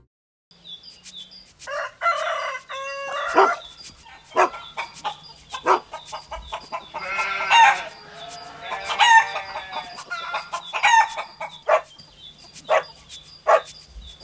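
Chickens clucking in short, sharp calls, with a rooster crowing around the middle.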